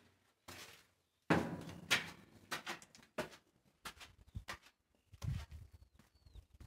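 Footsteps scuffing on gritty concrete, climbing steps and then walking on, about one to two steps a second. About five seconds in, a low rumble of wind on the microphone joins them.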